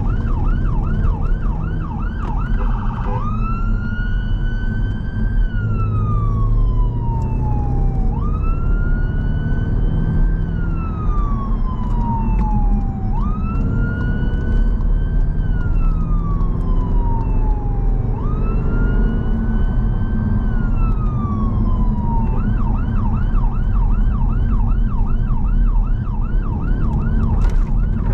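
Emergency response vehicle's own two-tone electronic siren, heard from inside the car: a fast yelp cycling about three times a second, switched about three seconds in to a slow wail of four long rise-and-fall sweeps, then back to the fast yelp near the end. Engine and road noise run underneath.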